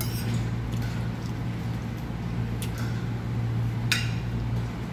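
Metal spoon and fork clinking and scraping against a ceramic plate a few times, the sharpest clink about four seconds in, over a steady low hum.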